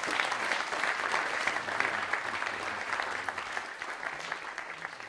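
Audience applauding, the clapping gradually thinning and fading toward the end.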